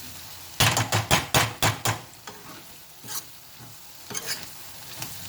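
A spoon stirring and scraping tomato and turmeric masala in a hot pan, over a steady sizzle. There is a quick run of about six scrapes in the first two seconds, then occasional single strokes.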